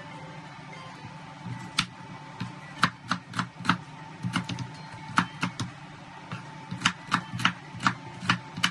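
Cleaver chopping a red onion on a wooden cutting board: sharp knocks in irregular runs, two or three a second, starting about two seconds in, over a faint steady hum.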